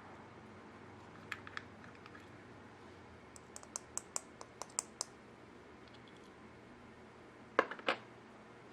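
A series of sharp clicks and taps: a couple early, a quick run of about ten light high clicks in the middle, and a louder double click near the end.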